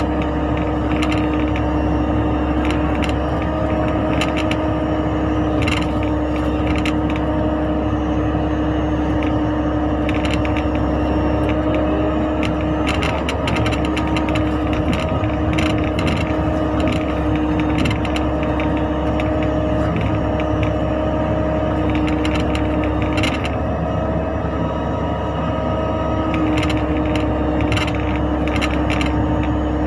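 Mini excavator's diesel engine running steadily under load, with a steady whine over it and scattered clanks and scrapes from the machine working as it digs.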